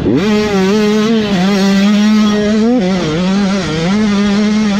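Dirt bike engine under throttle on a motocross track, heard close from on the bike. It revs up sharply at the start, then holds high revs with a couple of brief dips in pitch.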